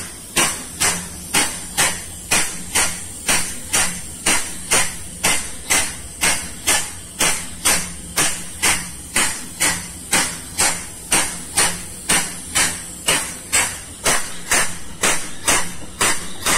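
Compressed-air-driven vacuum pump sucking residual crude palm oil out of a ship's cargo tank, cycling steadily with a sharp hissing stroke about two to three times a second over a low hum. It is noisy, and its stroke rate shows the load: slower when it is drawing oil, faster when it runs empty.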